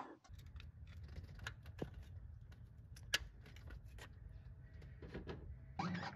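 Light metal clicks and taps of tools and parts being handled at a truck's AC compressor, scattered and irregular over a low steady hum, with one sharper click about three seconds in.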